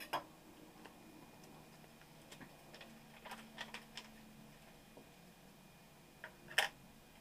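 Scattered light clicks and taps from handling a laptop RAM module and the PowerBook's memory bay: a few at the start, a quick cluster in the middle, and a sharper double click near the end.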